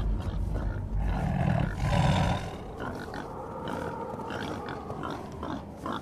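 Animal calls from a Siberian tiger and a black boar face to face: two loud, low calls in the first two and a half seconds, then quieter with scattered faint sounds.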